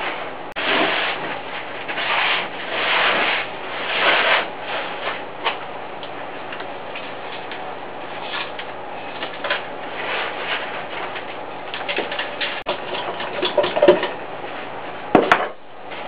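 Gloved hands working wet castable refractory cement in a plastic bowl and packing it into the foundry base, making irregular gritty rubbing and scraping strokes. Sharper knocks and clicks come near the end.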